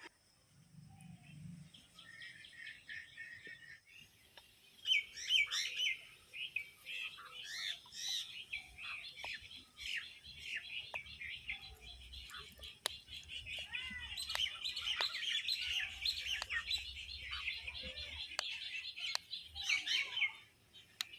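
Birds chirping, many short calls overlapping, growing busier about five seconds in and dying away just before the end.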